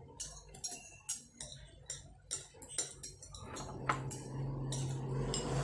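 Metal forks and spoons clicking and scraping against plates while people eat noodles. From about three and a half seconds in, a steady low hum rises underneath and becomes the loudest sound.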